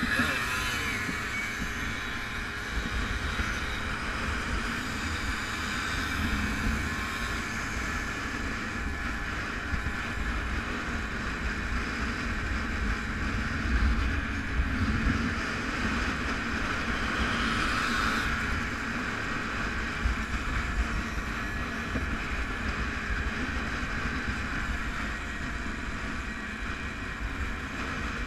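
Vintage motorcycle running at a steady road speed, with wind buffeting the microphone.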